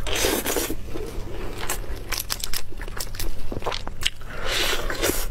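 Close-miked eating sounds: biting and chewing roast chicken, with many sharp crackling clicks and crunches and two longer noisy surges of chewing near the start and near the end.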